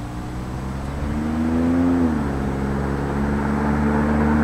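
2007 Pontiac G6 GT's 3.5 L V6 through a Classic Performance GT-R aftermarket exhaust, accelerating. The engine note rises, drops sharply on an upshift about two seconds in, then pulls again, growing louder as the car approaches.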